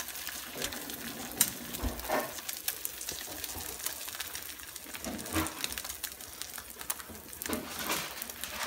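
Eggs and mushrooms frying in a cast iron skillet: a steady sizzling hiss with scattered small pops and crackles.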